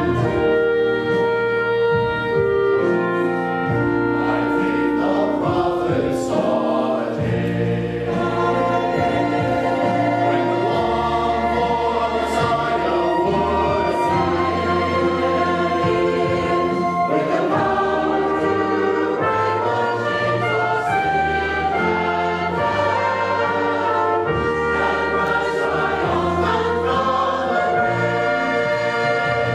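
A mixed choir singing with a small band accompanying it: woodwinds, violin and brass. The music is continuous, with held chords that move every second or two.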